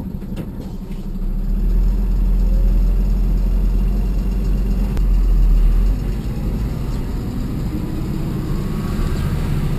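A car driving along a road: steady engine and tyre noise, with a heavy low rumble that swells about a second in and eases about six seconds in.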